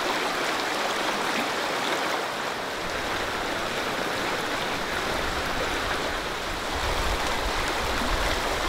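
Steady rush of the White River, a wide, fast, milky river running over a stony bed.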